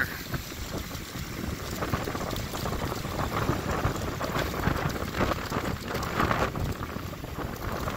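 Waves of a flooded river sloshing and splashing over a concrete landing and steps, coming in irregular surges, with wind buffeting the microphone.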